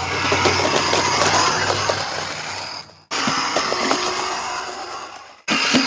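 A NewBright 1:10 Grave Digger RC monster truck driving, its electric motor and gearbox running with a gritty, ratcheting gear noise. The sound fades and is cut off twice, each time restarting abruptly.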